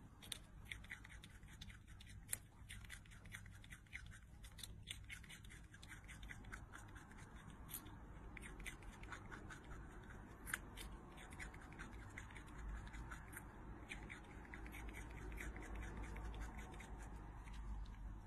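A squirrel gnawing and chewing a carrot: faint, quick, irregular crunching clicks that keep going with only short pauses.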